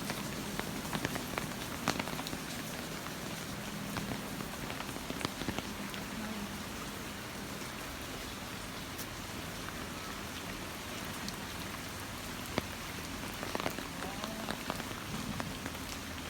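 Steady rain falling, an even hiss dotted with scattered sharp drop ticks.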